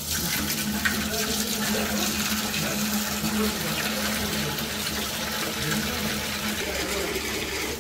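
Tap water running in a steady stream and splashing into a steel bowl, with a knife being rinsed under it.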